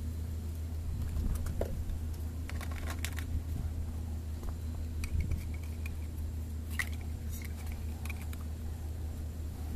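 Light clicks and faint squeaks of a plastic detergent bottle and its cap being handled and fitted, over a steady low hum.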